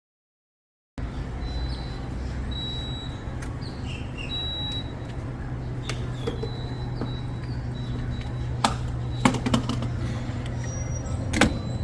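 Small birds chirping over a steady low hum, with a few sharp clicks near the end.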